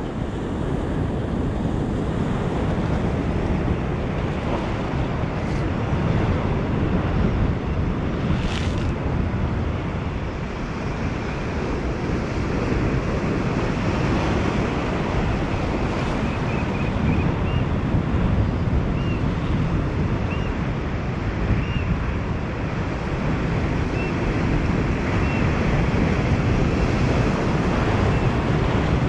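Sea surf washing and breaking against shoreline rocks, mixed with wind buffeting the microphone in a steady roar. A brief sharp click comes about a third of the way in, and faint short high chirps recur through the second half.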